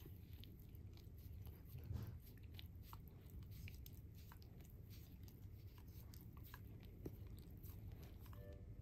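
Shiba Inu puppy licking and mouthing a person's fingers: faint, irregular wet clicks and smacks.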